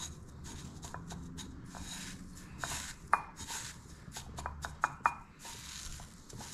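Breadcrumbs rustling and crunching as egg-coated fish strips are pressed and turned in a bowl of crumbs by hand, with a few sharp clicks against the enamel bowl, the loudest about three and five seconds in. A low steady hum runs underneath.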